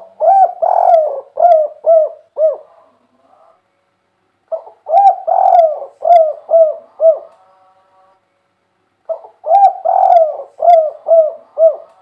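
Spotted dove (tekukur) cooing: three song phrases about four and a half seconds apart, each a drawn-out coo followed by a run of short clipped coos.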